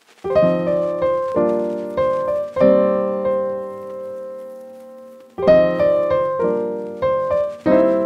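Background piano music: slow chords struck one after another and left to ring and fade, with a long fading chord in the middle before the chords start again.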